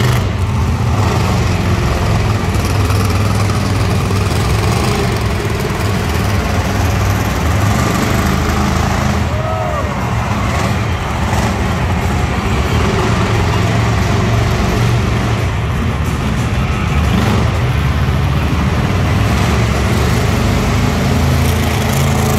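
Monster truck engines running loud and steady, a deep rumble under a wash of arena noise.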